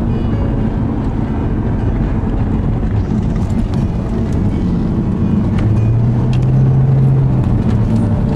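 Car engine and tyre noise heard from inside the cabin while driving at speed, with a few light knocks. The engine note grows stronger and holds steady for a second or two in the second half.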